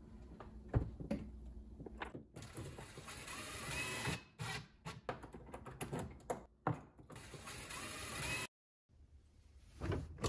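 Handling noise of a microwave's power cord being pulled up through a cabinet and plugged into a wall outlet: irregular rustling and scraping with scattered clicks and knocks.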